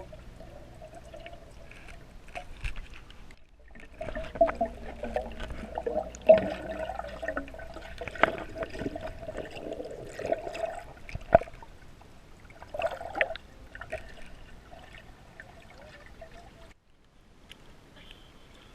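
Water sloshing, trickling and gurgling, with many sharp splashes and knocks scattered through it.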